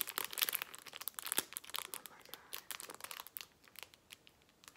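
Crinkling and crackling of a thin clear plastic sticker packet being handled between the fingers: a dense run of crackles that thins out to a few scattered ones near the end.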